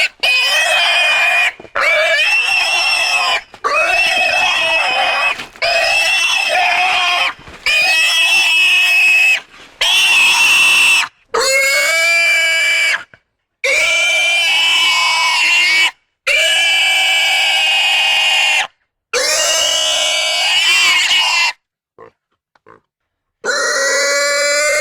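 Pigs squealing: a long series of loud, high-pitched squeals, each lasting a second or two, with short breaks between them and a pause of about a second and a half near the end.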